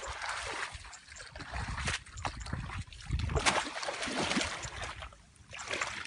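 Shallow muddy water splashing and sloshing in irregular bursts as a bamboo fish trap is pushed down into it and worked by hand. The loudest splash comes about three and a half seconds in, with a brief lull near the end.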